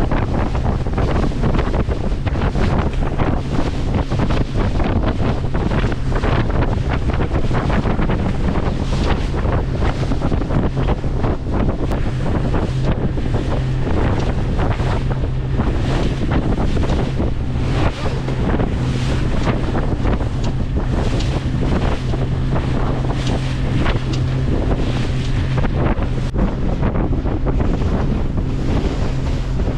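Wind buffeting the microphone over the steady low drone of a boat's engine.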